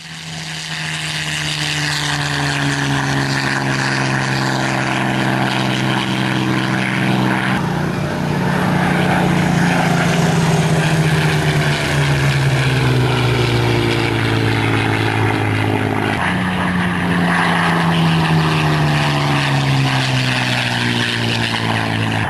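Light propeller aircraft's engine running steadily in flight, with wind rush, picked up by a camera mounted by the landing-gear wheel. The engine note steps up about a third of the way in and again past the middle, sagging slowly in between as the power or airspeed changes.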